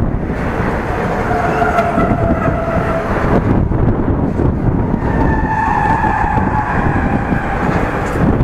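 Empty double-deck car-carrier wagons of a freight train rolling past at close range, a loud steady rumble of wheels on rail. Thin whining tones from the wheels rise above it twice, about a second in and again about five seconds in.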